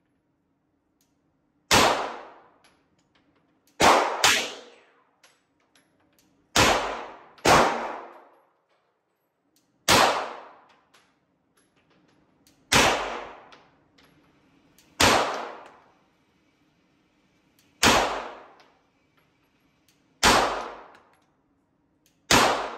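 Glock 17 Gen 5 9mm pistol firing single shots at a steady, deliberate pace, about eleven in all, mostly two to three seconds apart, with two quick pairs near the start. Each sharp report rings out and dies away in about a second in the indoor range.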